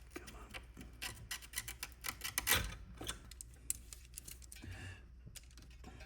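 Quick run of small clicks and taps from hand tools and wires being worked inside a tube amp chassis. They are thickest between one and three seconds in, with the loudest knock about halfway through.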